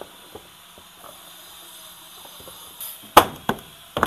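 Sharp knocks and clicks of plastic parts as a top-load washing machine's control-panel cover is refitted: a few faint clicks, then one loud knock about three seconds in, a lighter one just after, and two more near the end.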